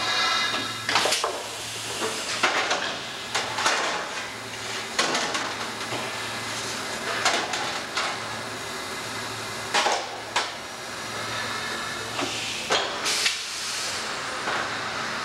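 Metal clanks and knocks from a steel truck fender being worked through a rotary compression bending machine. Under them run a steady hiss and a low machine hum that swells and fades about once a second.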